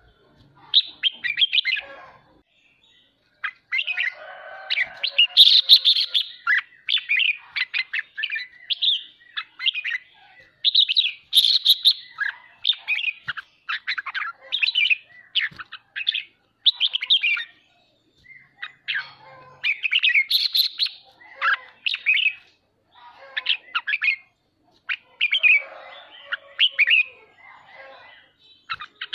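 Red-whiskered bulbul singing: short phrases of quick, bright chirping notes, repeated every second or two with brief pauses between. This is the fast, chattering 'ché' song that bird-keepers use to rouse other bulbuls into singing.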